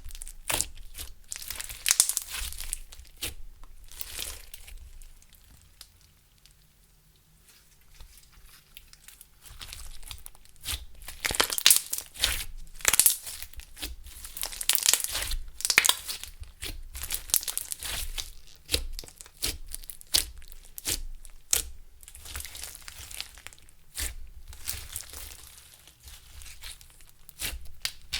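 Clear slime with makeup and glitter mixed in, worked by hand: a dense run of sticky crackles and pops as it is kneaded and stretched. About five seconds in it goes quiet for a few seconds, then the crackling picks up again.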